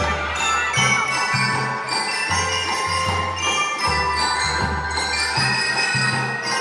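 Drum and lyre corps playing Christmas music: bell lyres ringing a bright melody over a pulsing low bass line.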